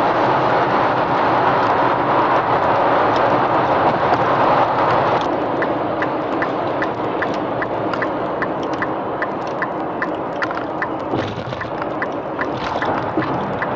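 A steady rushing noise that eases slightly about five seconds in. From that point a regular light ticking starts, about two and a half ticks a second.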